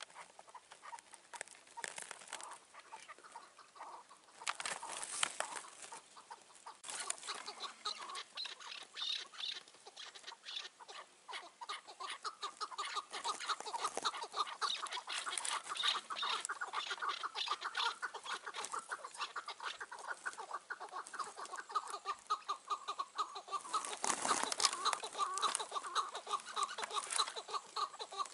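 Chukar partridges calling: a fast, unbroken run of short repeated 'chuk' notes that grows louder and denser after about twelve seconds.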